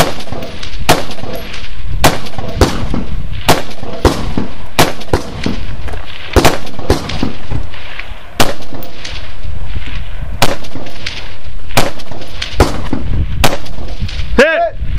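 Gunshots fired in quick, irregular succession, about one or two a second, on a 3-gun stage of steel targets.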